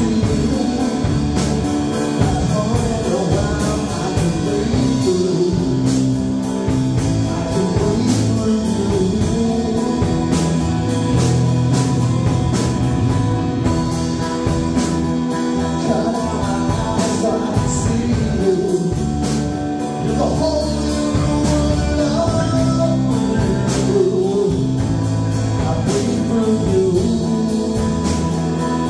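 Live rock band playing: strummed acoustic guitars, electric guitar through a combo amp, and a drum kit with steady drum and cymbal hits.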